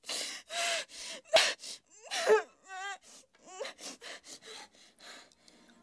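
A young woman crying: a string of short breathy gasping sobs broken by brief whimpering cries.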